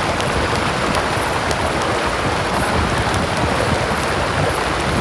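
A river rushing steadily, with the scattered small crackles and pops of a campfire burning over it.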